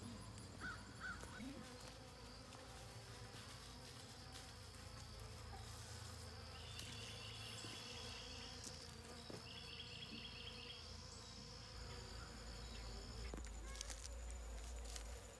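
Honey bees buzzing in flight, a faint steady hum of many bees around the hives and an open sugar-water feeder, where they are frantically feeding and robbing.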